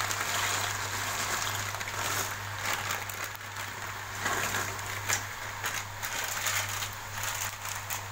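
Dry pasta poured from a plastic bag into a pot of boiling water: a run of small rattles and clicks as the pasta and bag shift, over the rush of the boiling water. A steady low hum runs underneath.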